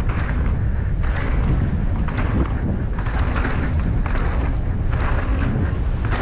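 Mountain bike rolling fast down a dirt and gravel trail: heavy wind rumble on the rider's clip-on microphone, with tyres crunching over loose stones and the bike rattling in quick, irregular clicks and knocks.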